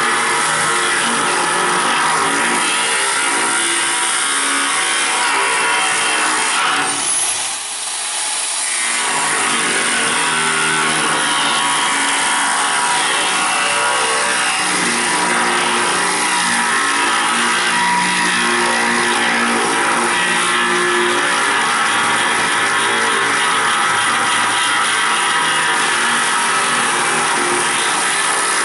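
Angle grinder cutting into the steel of a propane tank around its threaded valve fittings: a steady, loud grinding whine whose pitch shifts under load, easing off briefly about seven seconds in before biting in again.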